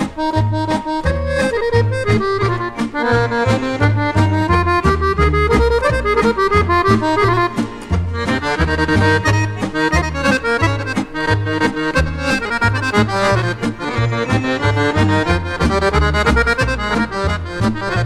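Instrumental break of a 1970s Serbian folk song: accordion playing quick melodic runs over a steady bass beat from the backing band, with no singing.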